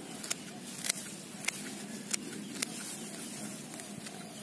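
Pruning shears snipping through grass stems: five sharp snips about two-thirds of a second apart, over a light rustle of grass.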